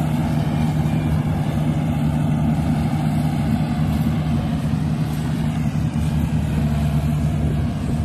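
Rice combine harvester running steadily as it cuts standing rice, a constant low engine hum.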